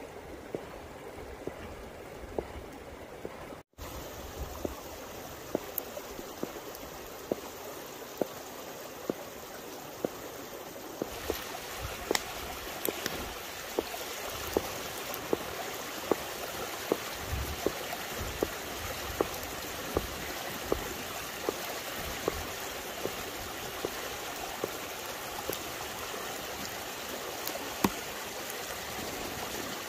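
A large knife chopping fresh pasta dough into strips on a wooden board, a sharp tap every half second or so, over the steady rush of a stream. The stream grows louder about a third of the way through.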